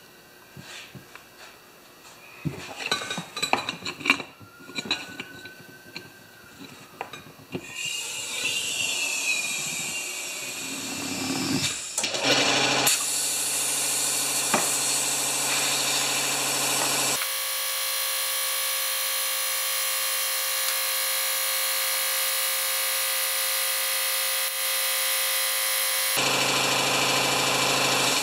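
A few clicks and knocks as an air chuck is fitted to a small tractor tire's valve stem, then compressed air hissing into the inner tube. The hiss starts about eight seconds in, grows loud and steady a few seconds later, and carries a faint hum under it.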